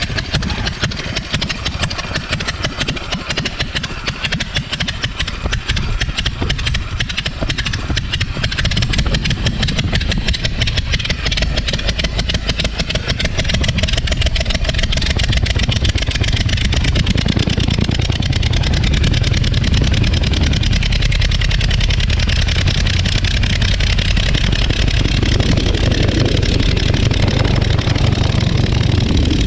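Verner 3V three-cylinder radial aircraft engine running with an even, rapid firing beat. It gets louder about a third of the way in and then holds steady.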